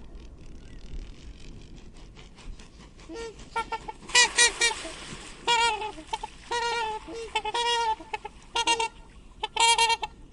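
Swan calls: short, pitched, nasal calls in quick series. They are faint at first, then loud and in close clusters from about three seconds in.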